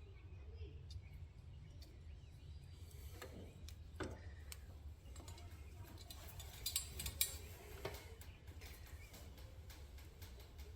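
Scattered light clicks and knocks of parts and tools being handled during ATV front-end work, with a small cluster about seven seconds in, over a steady low hum.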